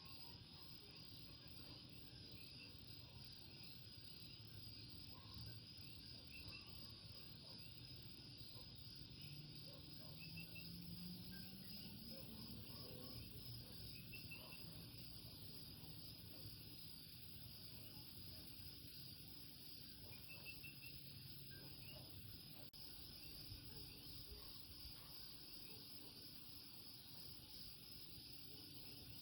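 Faint night chorus: a steady high insect trill, with short chirping calls of coquí frogs every few seconds. A faint low hum rises briefly near the middle.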